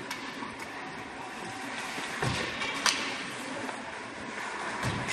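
Ice rink game noise: a steady wash of skates on ice and arena sound during hockey play, with one sharp knock about three seconds in.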